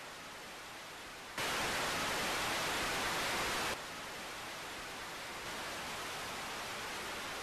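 Television static hiss, a steady white-noise rush. It jumps louder about a second and a half in and drops back down a couple of seconds later.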